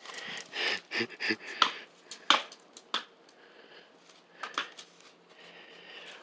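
Irregular sharp taps and knocks of a wooden stick held in a dog's mouth, knocking and scraping against concrete paving. They come several a second at first, then thin out after about three seconds, with a couple more a little later.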